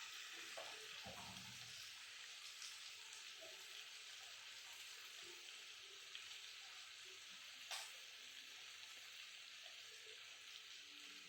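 Faint, steady sizzling of food cooking in a pot on the stove, with a single light click about three-quarters of the way through.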